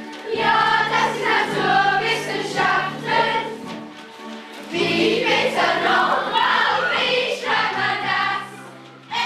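A class of schoolchildren singing a German song together in two long phrases, with a short break between them.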